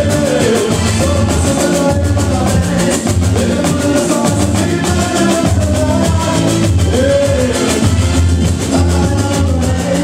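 Live boi-bumbá toada played through a PA: a male singer on a microphone over a steady, driving beat from large bass drums and snare-type drums.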